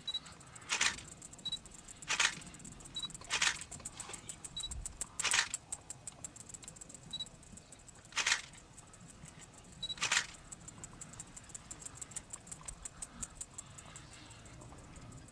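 A digital camera's short autofocus beep followed by the shutter firing, six times over about ten seconds at uneven gaps. A faint, fast ticking runs underneath and grows denser near the end.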